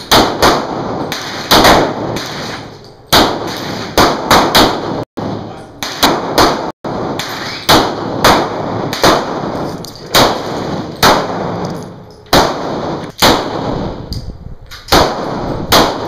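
Handgun fired repeatedly: about two dozen sharp shots at an uneven pace, sometimes several in quick succession about a third of a second apart, each followed by a short ring of echo.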